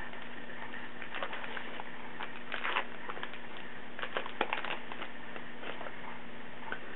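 Trading cards being handled and flipped through: scattered soft clicks and brief papery slides of card against card, over a steady hiss with a faint low hum.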